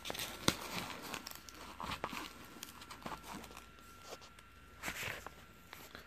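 Styrofoam packing being pulled and broken apart by hand: faint scattered crackles, crunches and clicks with rustling between them.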